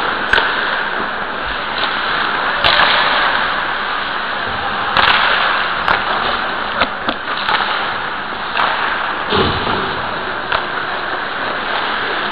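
Ice hockey play heard from a helmet-mounted camera: a steady rushing hiss of skates on ice and the camera's own rubbing noise, with several sharp clacks of sticks and puck and a dull thump about two thirds of the way through.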